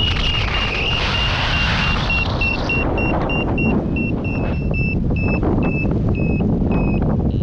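Paragliding variometer beeping its climb tone, a rapid train of short high beeps that slows from about four to two a second and drops slightly in pitch as the lift weakens, over wind rushing on the microphone.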